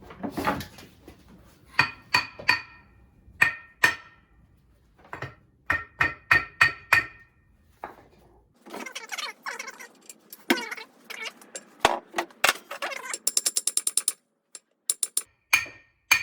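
Hammer blows ringing on steel, struck in quick groups of a few taps, to shock a part free of its tapered shaft on a Harley-Davidson flathead engine. A busier metal clatter follows, and near the end comes a fast, even run of ratchet clicks.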